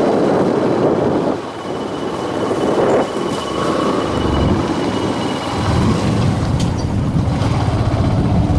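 A vehicle driving on a rough dirt road, with wind rumbling on the microphone over a low engine note. The engine comes through more steadily about six seconds in.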